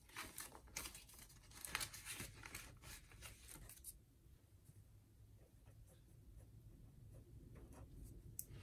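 Paper banknotes and a clear plastic binder sleeve rustling and crinkling as cash is handled and put away, busiest over the first four seconds. After that it goes much quieter, with faint scratching of a felt-tip marker on notebook paper.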